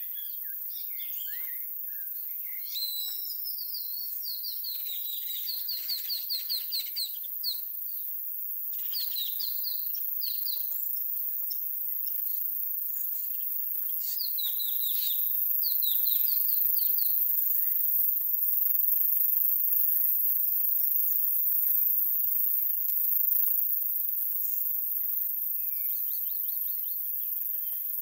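Birds chirping and calling, with quick runs of repeated high notes, over a steady high hiss.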